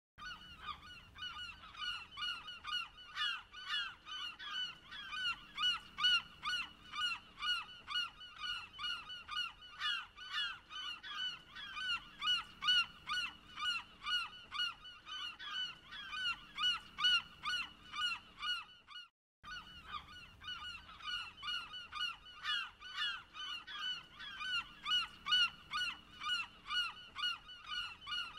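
A flock of gulls calling, with many harsh calls overlapping several times a second. The calls drop out for an instant about two-thirds of the way through, then carry on.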